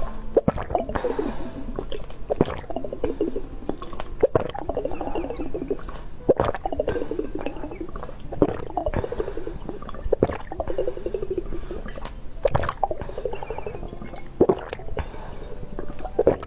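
Close-miked drinking: a person taking big gulps of a drink, a wet swallow about every two seconds, each starting with a sharp click.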